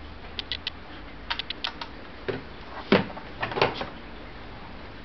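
Handling noise from an LED aquarium light bar being moved and laid down: groups of quick light clicks, then knocks, with two louder thumps about three and three and a half seconds in.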